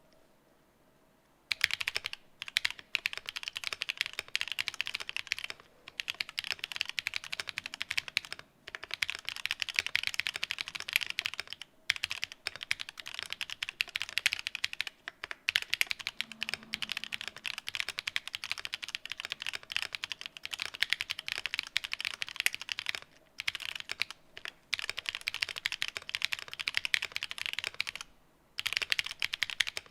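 Mechanical keyboard typed on steadily, its KTT Rose linear switches under Cherry-profile keycaps giving a dense run of key clacks. The typing starts about a second and a half in and pauses briefly a few times.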